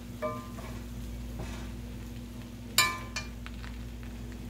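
A metal spoon stirring jambalaya (rice with pork and sausage) in a cast-iron Dutch oven. It scrapes through the rice and clinks against the pot a few times with short metallic rings, the loudest clink about three seconds in. A steady low hum runs underneath.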